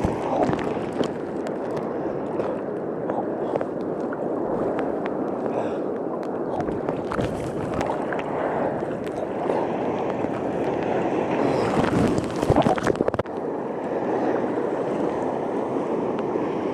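Seawater churning and splashing close to the microphone: a steady rushing slosh broken by frequent sharp splashes, loudest about twelve seconds in.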